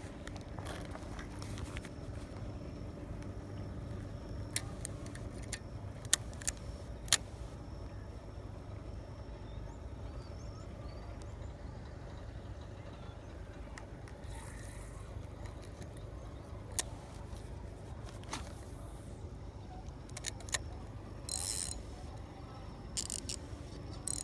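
Fishing tackle being handled: scattered sharp clicks and a few short rustles as the line and spinning reel are worked, over a steady low rumble.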